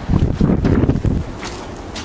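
A gust of blizzard wind buffeting the microphone: a loud, irregular low rumble that lasts about a second and then eases.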